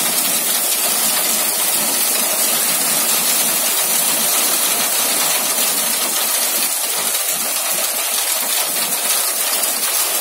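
Hailstorm with heavy rain: a loud, steady hiss of hailstones and rain pelting down, thick with small impacts.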